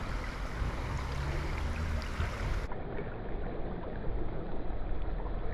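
River water flowing steadily, with a low rumble in the first half.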